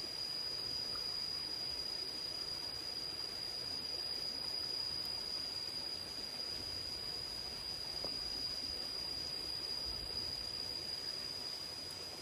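An insect giving one unbroken high-pitched trill, held at a steady pitch, over faint outdoor background noise.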